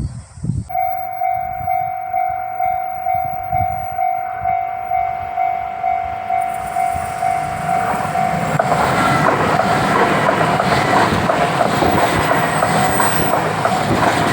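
A railway level-crossing bell rings in a steady pulse, about two strokes a second. About eight seconds in, it is overtaken by the rising rush and wheel clatter of a Yamagata Shinkansen Tsubasa train passing over the rails.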